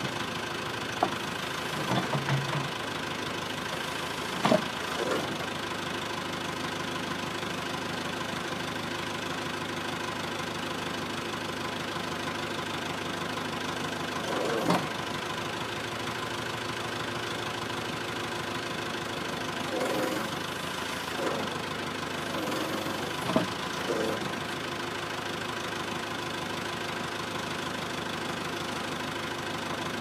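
Caterpillar backhoe loader's diesel engine running steadily while the backhoe arm works a stump, with a few short sharp knocks and cracks scattered through.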